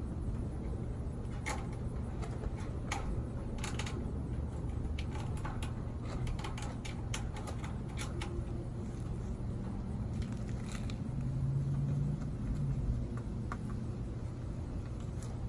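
Scattered light clicks and small rattles of grill parts being handled during assembly, over a steady low background rumble.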